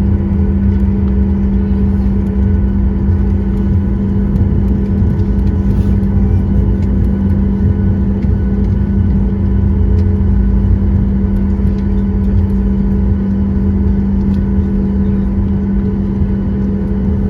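Cabin noise of a Boeing 737 MAX with its CFM LEAP-1B engines running steadily at low power: an even low rumble with a constant hum.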